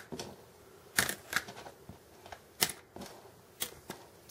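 Small metal parts of a diecast model crane, brass pins among them, clicking as they are handled and set down on a tabletop: about five sharp, irregular clicks.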